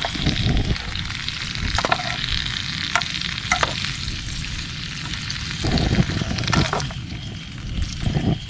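Shrimp sizzling in a pan, with a few short clinks of a utensil stirring against the pan.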